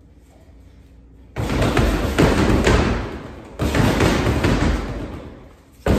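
Gloved punches landing on a Century Wave Master free-standing heavy bag: a flurry of thuds that starts suddenly about a second and a half in and comes in bursts, each fading before the next begins.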